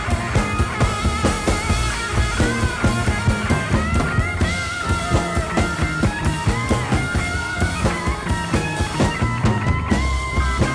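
Rock music with electric guitar lines and a steady drum beat.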